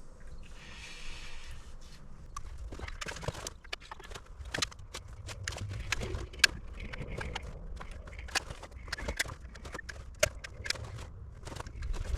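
Manual caulking gun in use: irregular sharp clicks and knocks from the trigger and plunger as it is squeezed along the joints, with a brief hiss about a second in.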